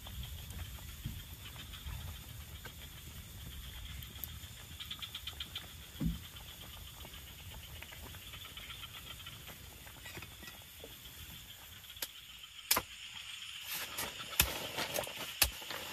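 Night outdoor ambience: a steady insect chirr over a low rumble, with a quick run of ticks about five seconds in and a dull thump just after. In the last few seconds come several sharp clicks and knocks.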